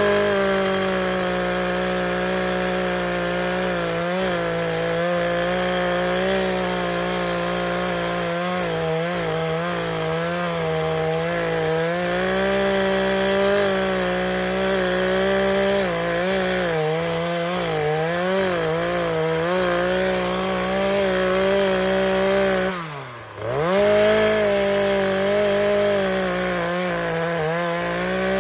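Chainsaw running at full throttle, cutting into dead pine wood, its engine pitch wavering under the load of the cut. About 23 seconds in the revs drop briefly, then climb straight back to full speed.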